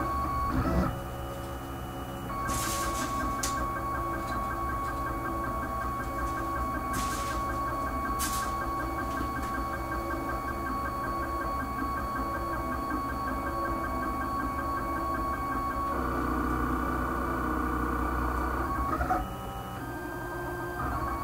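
Homemade wooden-frame FDM 3D printer printing: its stepper motors whine in steady tones as the print head moves, the pitch and level shifting at each new move, about four times, over a constant low hum.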